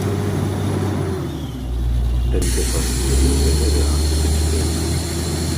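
Borewell drilling rig running: a steady low engine and compressor hum. About two and a half seconds in, a loud hiss of compressed air starts suddenly and keeps going.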